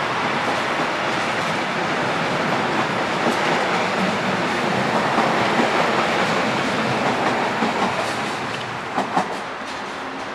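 Red x-Wagen coaches of an S-Bahn train hauled by a class 143 electric locomotive, pulling out at low speed with the wheels clattering over rail joints. The sound fades once the last coach has passed, with two sharp clicks near the end.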